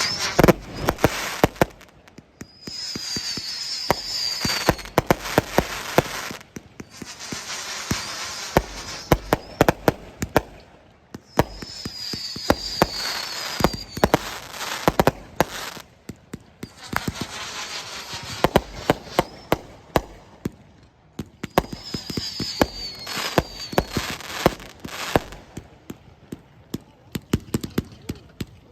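Fireworks going off in a continuous barrage of sharp bangs and crackling, coming in waves. Three times a high whistle falls in pitch.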